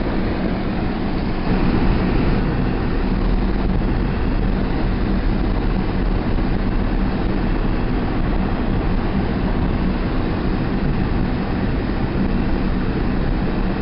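A car's engine and road noise heard from inside the cabin while driving: a steady low rumble with a faint hum.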